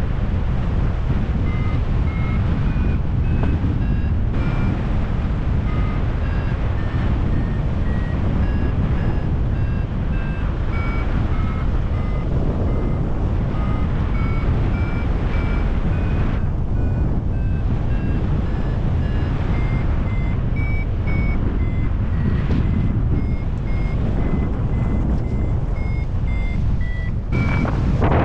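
Paragliding variometer beeping in short tones, about two a second, stepping up and down in pitch as the climb rate changes, the sign of flying in lift. Loud wind rushes on the microphone underneath.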